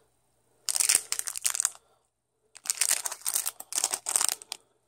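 Clear plastic bag crinkling as it is handled with a metal dog tag and ball chain inside, in two bursts: one about half a second in lasting about a second, and a longer one from about two and a half seconds in until near the end.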